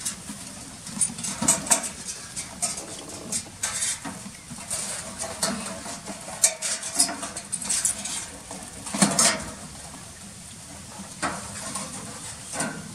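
Irregular rustling, scraping and clinking as hands dig into a black container wrapped in a plastic bag to lift out a grilled chicken.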